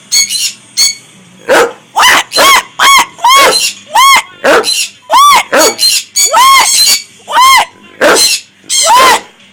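Pet conures and dogs making noise together: a rapid run of short, loud, shrill calls, about two a second, without a break.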